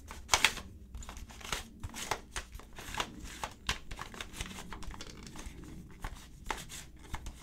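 Plastic clicking and clacking of a YuXin Penguin 2x2 puzzle cube as its layers are turned by hand in quick, irregular twists, with two louder clacks about half a second in.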